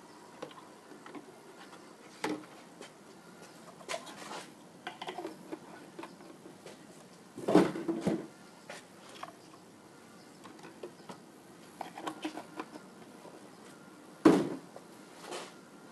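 Scattered knocks and clunks of objects being handled, with a louder thud about halfway through and another near the end. No engine is running.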